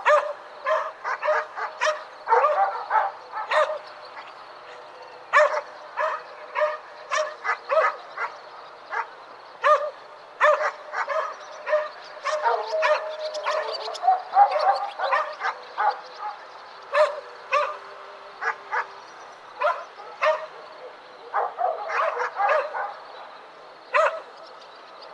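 Dogs barking repeatedly, in runs of several sharp barks separated by short pauses.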